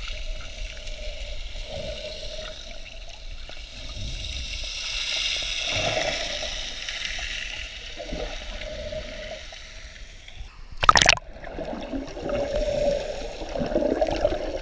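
Sea water sloshing and gurgling close to the microphone while swimming, with one brief loud burst of noise about three-quarters of the way through.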